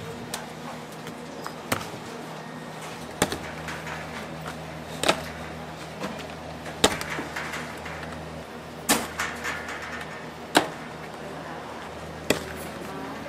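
Hand-pulled candy mass being worked over a stainless-steel wall hook, a sharp slap each time it is thrown and pulled, about every one and a half to two seconds. A steady low hum runs underneath.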